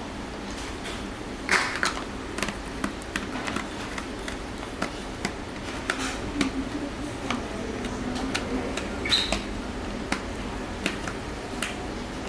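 Irregular sharp clicks and clinks of chopsticks and tableware against dishes during fast eating, over a steady low background hum.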